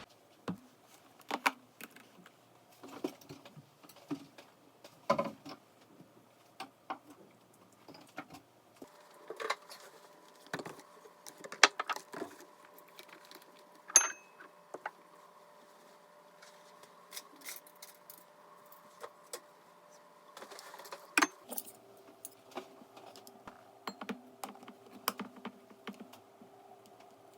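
Irregular light clicks, taps and clatters of small hard objects being handled, a few of them sharper knocks, over a faint steady hum.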